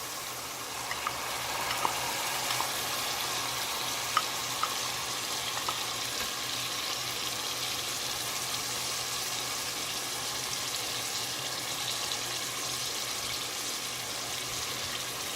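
Oil-rich onion-tomato masala sizzling steadily in a pan as soaked mash (urad) daal is added and stirred in, with a few light spoon knocks against the pan in the first several seconds.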